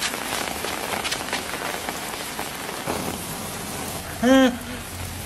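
Garden hose spraying water that patters down on grass and a person like falling rain, as a steady hiss. A brief voice sounds about four seconds in.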